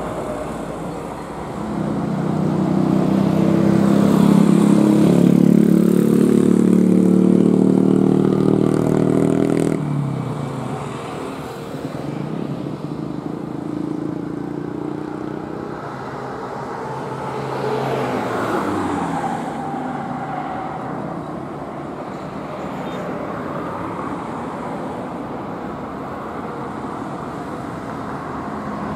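Jet airliner engines running. A loud, steady drone for the first ten seconds drops off, then a quieter rumble follows, with one falling pitch sweep about eighteen seconds in.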